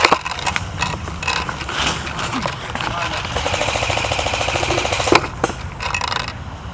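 Airsoft gun firing a full-auto burst: a rapid, even rattle lasting about two seconds, past the middle, with a few sharp clicks before and after it.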